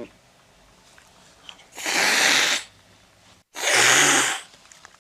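Domestic cat hissing twice, two harsh breathy rushes of about 0.8 s each, a second and a half apart.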